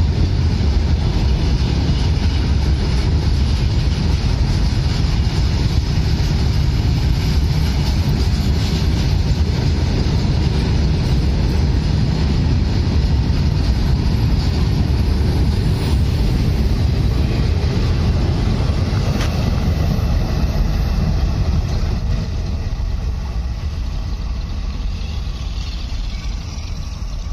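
Freight train of open steel coal wagons running past close by at speed: a loud, steady rumble of wheels on rail that eases slightly after about twenty seconds.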